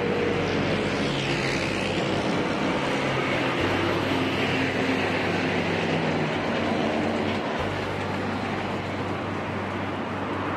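Heavy diesel tanker truck with a triple-axle tank semi-trailer passing close on a highway, its engine hum and tyre noise over steady traffic.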